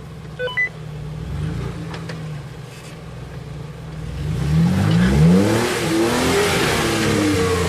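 Jeep Wrangler JK engine running low, then revving up under load on a rock climb from about four seconds in, its pitch rising and holding, with a rising hiss of noise as it works.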